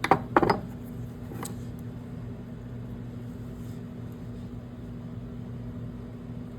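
Two sharp knocks close together as tools or parts are handled during work on the pump, then a lighter one about a second later, over a steady low hum.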